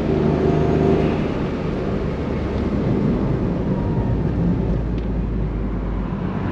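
Honda S660's small turbocharged three-cylinder engine easing off, its engine note fading within the first couple of seconds and settling into a steady low rumble.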